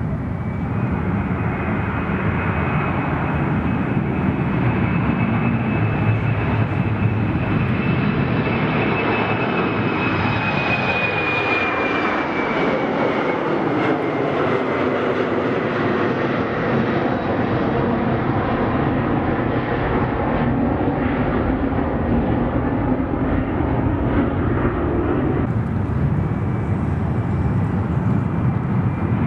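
Airliner engines heard passing close by: a steady loud roar with a high whine that slides down in pitch as the aircraft goes past, about halfway through.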